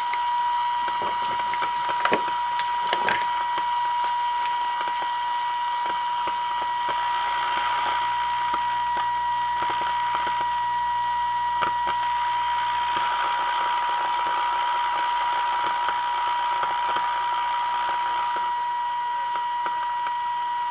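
The RCA Victor 1-X-51 tube radio's speaker sounds a steady test tone over hiss: the signal generator's modulated IF signal coming through while the IF cans are being aligned. There are a few sharp clicks in the first few seconds, and the hiss swells and fades as the adjustment goes on.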